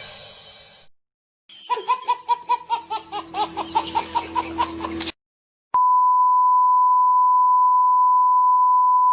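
Comedy sound effects one after another. First a quick rhythmic laugh, about four or five pulses a second for three or four seconds. Then a loud, steady, single-pitch beep tone held for over three seconds, cut off suddenly at the end.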